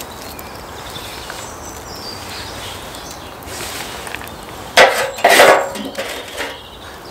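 Birch logs and kindling being handled and set in place on a small fire over the buried pit, with two loud scraping, rustling noises about five seconds in.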